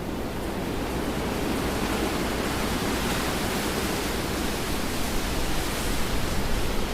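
Rain falling as a dense, even hiss with no distinct drops or thunder, swelling over the first couple of seconds and then holding steady.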